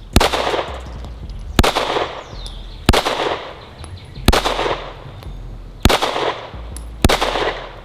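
Springfield Echelon 4.0C 9mm pistol firing six shots at a steady, unhurried pace, one about every second and a half, each shot trailed by a short echo.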